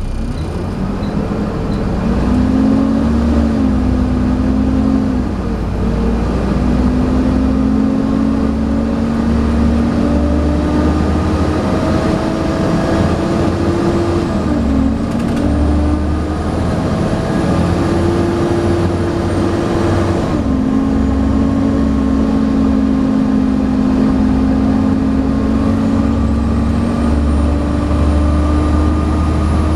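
Volvo B7TL double-decker bus's six-cylinder diesel pulling hard. The engine note climbs and falls back sharply about five, fifteen and twenty seconds in, as at gear changes. A faint high 'hoover' whine, the vacuum-cleaner-like whistle of the engine, rises over it twice in the second half.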